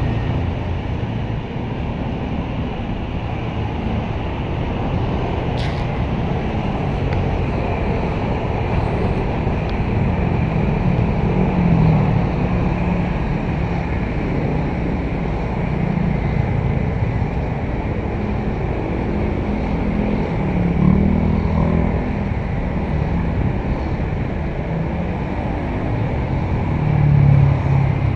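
Diesel engine of a small backhoe excavator running steadily, its pitch rising and falling several times as it works under load while dredging.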